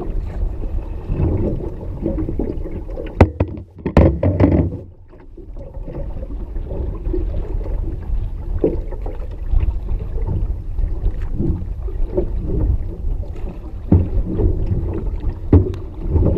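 A lightweight canoe being paddled through choppy water in strong wind: wind on the microphone and water against the hull make a steady low rush. Sharp knocks come through it, a cluster about three to four and a half seconds in and a few single ones later.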